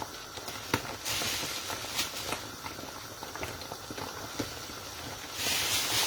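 Pot of ogbono soup simmering and bubbling, with scattered light clicks and two stretches of louder hiss, about a second in and near the end.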